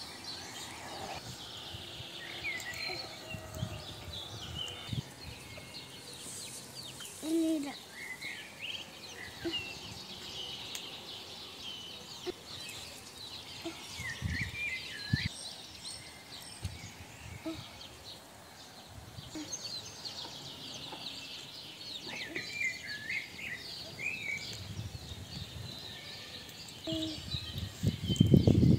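Small birds chirping on and off, with chickens clucking now and then. A few soft knocks, and a louder low thump near the end.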